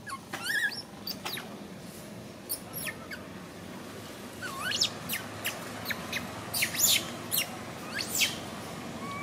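Infant long-tailed macaque giving short high squeaks: a rising squeak about half a second in and another near the middle, with brief sharp high chirps scattered between.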